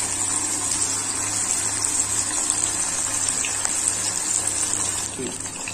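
Marinated anchovy pieces deep-frying in hot oil in a steel kadai: a steady, even sizzle of bubbling oil, with a low steady hum underneath.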